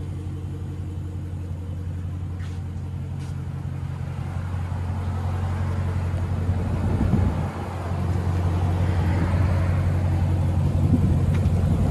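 Dodge Challenger Hellcat Redeye's supercharged 6.2 L V8 idling steadily with a deep exhaust rumble. The car is running without catalytic converters. The rumble grows fuller and louder over the second half.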